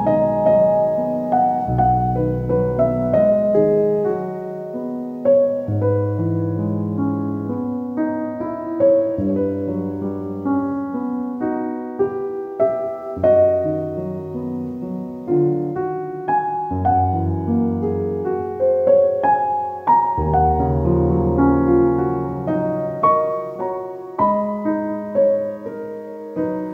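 Soft solo piano background music, slow melody over deep sustained bass notes.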